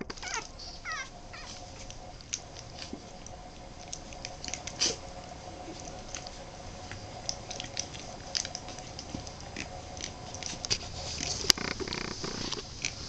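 Boston Terrier puppies about three weeks old squeaking and whimpering, with a few short squeaks in the first second or so and many small clicks and smacks as they crawl over one another. A faint steady hum runs underneath.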